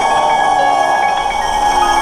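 Handheld electric circular saw running at speed: a steady motor whine with ringing metallic overtones from the blade.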